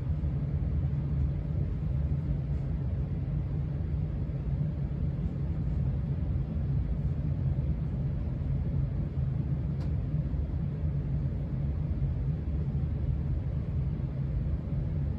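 Steady low rumble of a running HVAC system, with a Casablanca Spirit of Saturn ceiling fan spinning at speed 4. A single faint click about ten seconds in.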